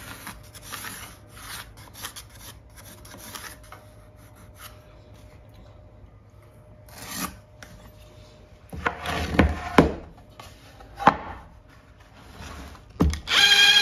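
Pencil scratching along wood as an outline is traced around a block, then several knocks as the wooden pieces are moved and set down on the workbench. Near the end a cordless drill starts running.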